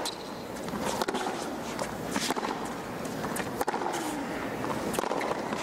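Tennis rally on a hard court: sharp pops of racket strings striking the ball, about once a second, over a steady stadium hum.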